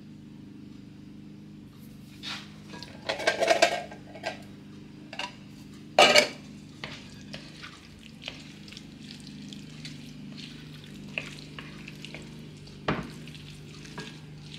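Drained canned corn tipped out of a tin can into a glass mixing bowl, with a rattling clatter about three seconds in and a sharp clink of the can against the bowl about six seconds in. Scattered light taps and scrapes follow as the bean-and-corn salad is stirred in the bowl, over a steady low hum.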